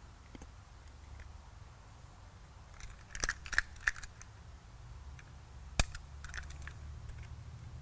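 An X-Acto knife working on a fuel-tank draw-straw tube: a quick run of small clicks and snicks about three seconds in, then one sharper click a little before the end, with a few faint ones after it.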